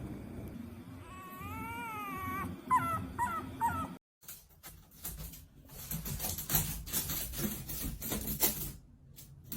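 A puppy whining in one long wavering high cry, then giving three or four short falling yelps. The sound breaks off about four seconds in, and irregular scuffling and clattering follow.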